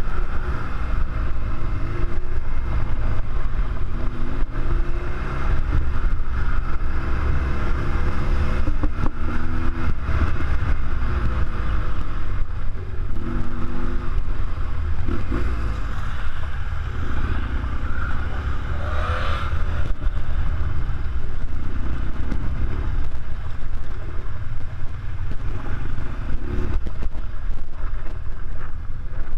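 BMW R1200GS Adventure's air/oil-cooled boxer twin running on the move. Its pitch rises and falls as the throttle is opened and closed. A heavy, steady rumble of wind on the microphone sits underneath.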